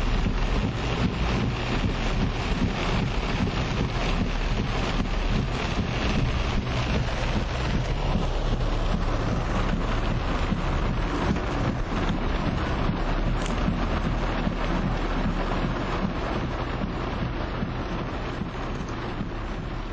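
Heavy rain and strong wind in a downpour, the wind buffeting the microphone into a steady roar of noise that fades a little near the end.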